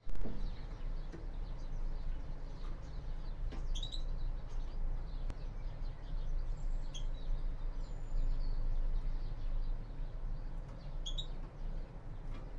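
Caged European greenfinches giving a few short, sparse chirps over a steady low hum.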